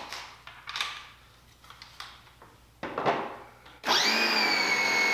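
Handling clicks and knocks from fitting a nozzle into the spray gun, then about four seconds in the Portland 1750 electric pressure washer's motor starts when the trigger is pulled, with a quick rising whine that settles into a steady run over the hiss of water spraying into a bucket.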